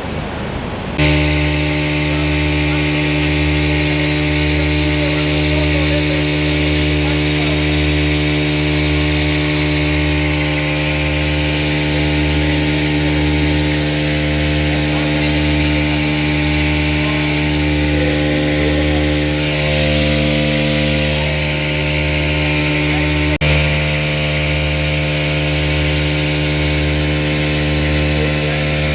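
A machine's motor starts up abruptly and runs steadily with a strong hum of several fixed tones and a low throb that pulses about once a second. A single sharp click comes near the end.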